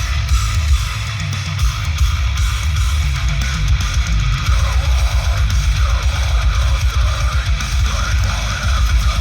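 Loud rock song with electric guitar, played through a car-audio amplifier and 12-inch subwoofer test rig, with heavy, pounding bass.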